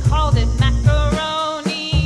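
Background song with a singing voice over a steady bass beat; the bass drops out briefly near the end.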